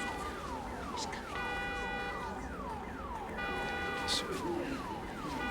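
Van alarm sounding. It cycles between a steady multi-tone hold and a run of quick falling whoops, switching about once a second.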